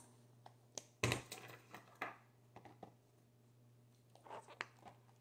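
Faint, scattered clicks and soft knocks of silicone pop-it fidget toys being handled and set down on a table, the loudest a dull knock about a second in.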